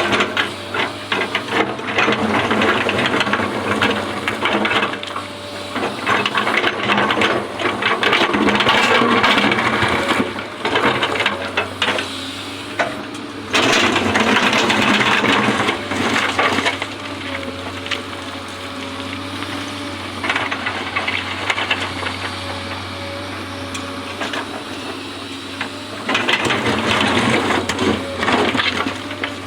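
Excavator working: its diesel engine runs steadily under stretches of louder clattering and scraping.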